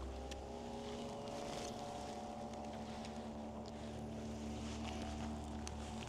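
Steady drone of a boat motor, its pitch rising slightly, with a few faint clicks over it.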